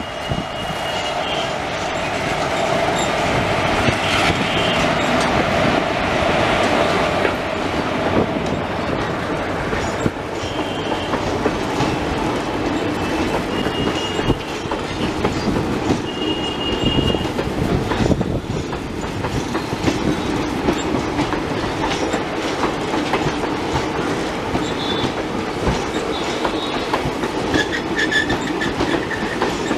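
Vibhuti Express passenger train rolling past, its wheels clattering over the rail joints in a constant run of clicks. Short, high wheel squeals come through now and then.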